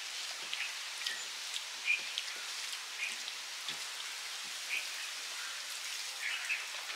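Hand-eating sounds: fingers mixing rice and curry on metal plates, with chewing and a scatter of short, soft clicks and smacks.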